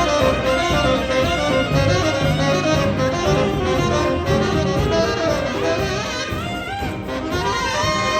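Saxophone ensemble of alto, two tenors and baritone, backed by bass guitar and piano, playing a jazz tune.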